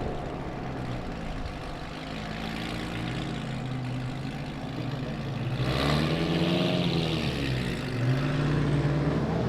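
Car engine accelerating hard with a loud exhaust. It grows louder about six seconds in, and its pitch climbs and drops, then climbs again near the end.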